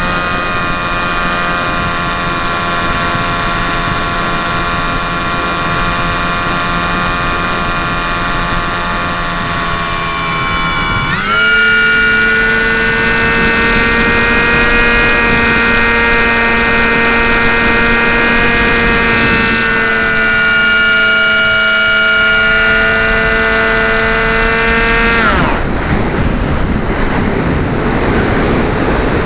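Motor and propeller of a radio-controlled FPV model aircraft, heard through its onboard camera: a steady whine that jumps higher in pitch and gets louder about eleven seconds in as the throttle opens. It cuts off a few seconds before the end, leaving the rush of wind over the gliding airframe.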